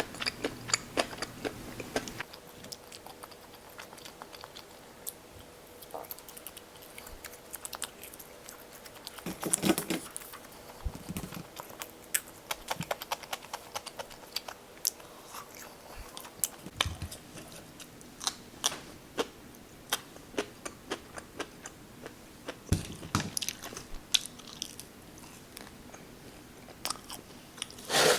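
Close-miked eating: a person biting and chewing food, with many irregular sharp, wet mouth clicks. A cluster of louder bites comes about ten seconds in, and another near the end.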